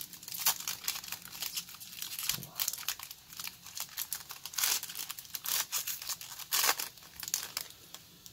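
Foil wrapper of a Panini Optic trading-card pack crinkling and tearing as it is peeled open by hand: a run of sharp crackles that thins out near the end as the cards come free.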